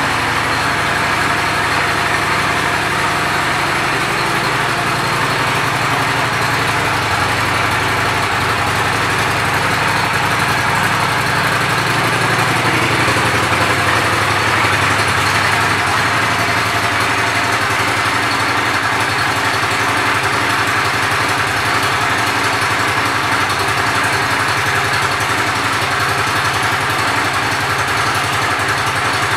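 Honda Shadow 750 Spirit's V-twin engine idling steadily through its stock chrome exhaust.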